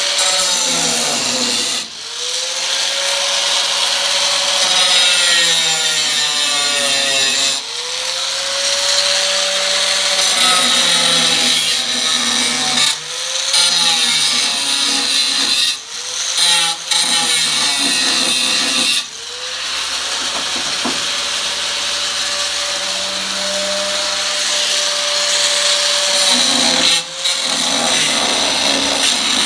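A hand-held power tool cuts into the car's sheet-metal body panel. Its motor whine and the hiss of the cut run at full speed. The tool stops briefly again and again, and each time the whine climbs back up to speed.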